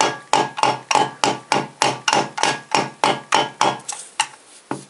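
Quick, light taps of a plastic tool handle on a Toyota VVTi piston crown inside a steel piston ring compressor, about three a second, each with a short metallic ring. The taps stop near the end. The piston has stopped sliding into the cylinder bore, so it is being tapped carefully with small hits on different sides.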